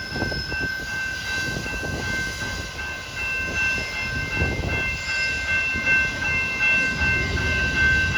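CPKC train rolling past, its cars rumbling with repeated low thumps, under several steady high-pitched tones that waver in strength and cut off near the end.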